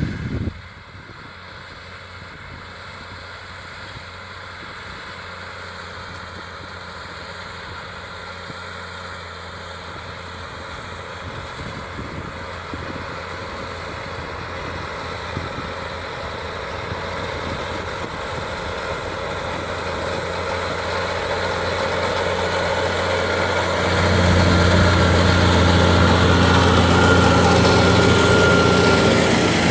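McCormick tractor's diesel engine running steadily under load while pulling a reversible plough through the soil, growing louder as the tractor approaches and louder again with a sudden step near the end.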